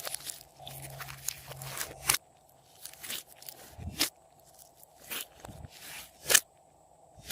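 Slime being pressed and worked by hand, with sticky crackling for about the first two seconds, then separate sharp pops and clicks about once a second.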